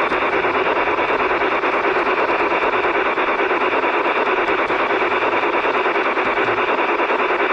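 G-scale model steam train running along its track, heard from a camera riding on it: a steady, even whir of the electric drive motor and wheels on the rails.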